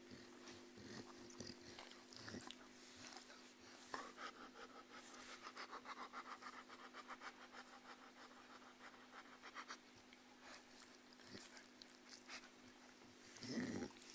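A sick German shepherd puppy panting faintly, with quick rhythmic breaths several times a second for a few seconds in the middle. Near the end there is one short, louder sound from the dog.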